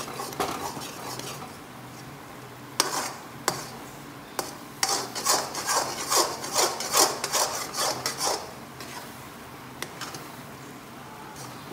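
Metal spatula stirring and scraping thick atta halwa (karah prasad) around a metal kadhai as it thickens after the sugar syrup has gone in. Scraping strokes come about two a second through the middle, with a few sharp knocks of the spatula against the pan.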